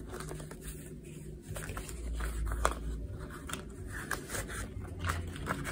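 Paper banknotes being sorted and shuffled by hand: soft rustling with a few light crinkles.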